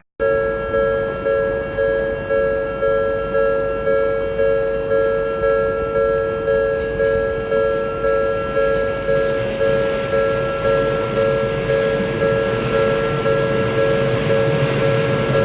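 Japanese level-crossing warning alarm ringing: a two-tone electronic bell repeating about one and a half to two strikes a second, each strike fading before the next. A train's low rumble builds beneath it near the end.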